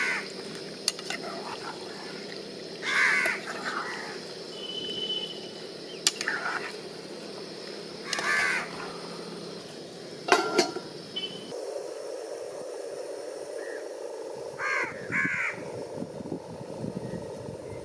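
Crows cawing: several separate caws a few seconds apart, two in quick succession near the end, over a steady low background with a few sharp clicks.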